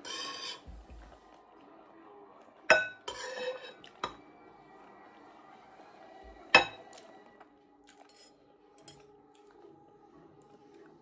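Cutlery clinking and scraping on a plate during a meal, with two sharp clinks a few seconds apart, the second the loudest.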